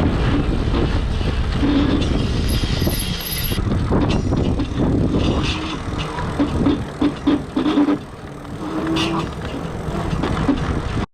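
Lectric 3.0 step-through e-bike's hub motor making a bad grinding noise while the bike runs, over a steady low rumble. Short bursts of a pitched grind come and go, most often in the second half.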